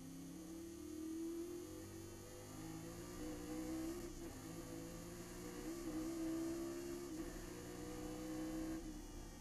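Chevrolet Nova race car's engine under full acceleration, heard from inside the car as a steady pitched drone. It breaks briefly about four seconds in and again near the end as the car shifts up.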